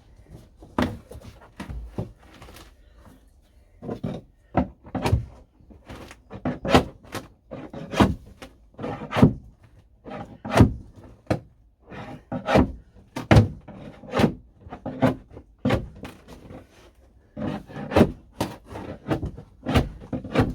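Repeated sharp knocks and thuds of a hand tool striking wood, irregular at about one to two a second, as glued-down flooring is worked loose; the strikes come thicker and louder from about four seconds in.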